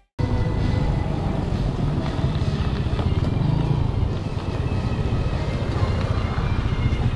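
Steady low rumble of wind on the microphone and tyre noise from a mountain bike riding along a paved street, holding at an even level.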